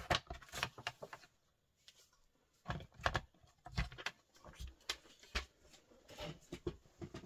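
Paper trimmer and a freshly cut sheet of white cardstock being handled: a string of short clicks, taps and paper rustles with quiet gaps between, as the trimmer's clamp bar is lifted and the card is slid out and laid down.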